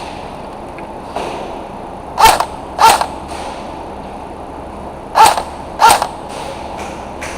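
Airsoft gun firing two pairs of sharp shots, each pair about half a second apart and the two pairs about three seconds apart.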